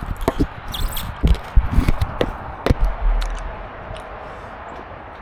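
A string of knocks and clicks from hands working a Craftsman snowblower's controls while getting it ready to start, the loudest in the middle, with a low thud about three seconds in; the engine is not yet running.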